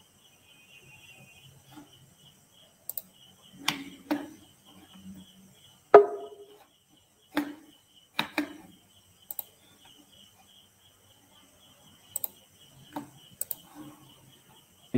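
Quiet open line on a video call: a faint, steady, pulsing high tone under scattered clicks and knocks, the loudest knock about six seconds in.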